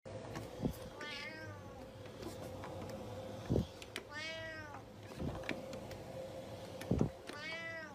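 Domestic cat meowing three times, about three seconds apart, each meow rising and falling in pitch. Short dull thumps come between the meows, and two of them are louder than the meows.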